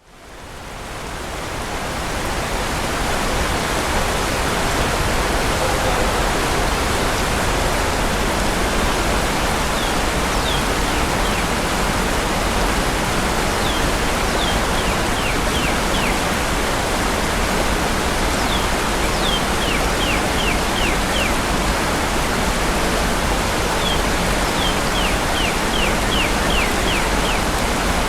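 Rushing water of a creek rapid, blended with the deeper sound of a waterfall upstream, rising in over the first few seconds. Over it a northern cardinal sings several phrases of quick down-slurred whistles.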